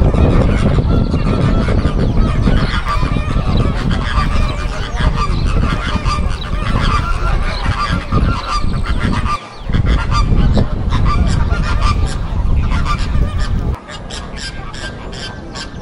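Geese honking repeatedly over a heavy low rumble that drops away about fourteen seconds in.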